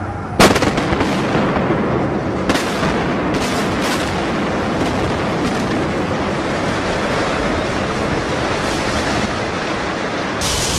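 Controlled demolition of a high-rise building. One loud sharp blast comes about half a second in, a few more cracks follow over the next few seconds, then the building collapses with a steady heavy rumble.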